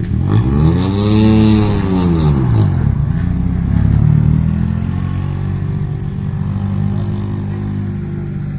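Rally car engine revved once, its pitch rising and falling back over about three seconds, then running on at a steady lower note.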